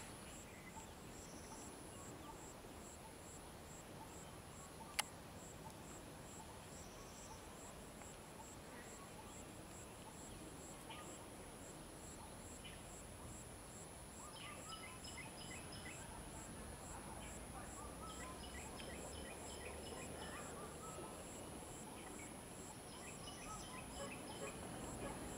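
Ambient insect chorus: a steady high drone over a rapid, even pulsing, with birds calling in short chirping runs in the second half. A single sharp click about five seconds in.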